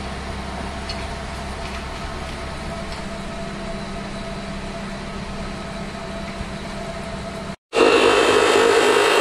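A steady low mechanical hum with a few faint ticks, then, after a short break near the end, a Hitachi abrasive chop saw cutting loudly through round steel tube.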